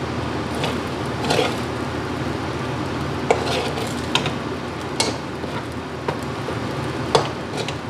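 Metal spatula scraping and clinking against a metal wok as rice is stir-fried, with a steady frying sizzle underneath. There are about five sharp clinks of the spatula on the pan.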